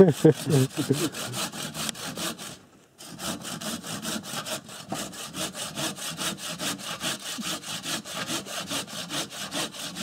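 Hand saw cutting through a damp birch log in quick, even strokes, with a short pause a little before three seconds in.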